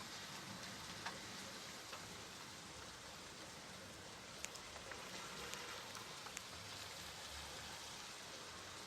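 Steady rain falling, a soft even hiss with scattered individual drops ticking on a surface.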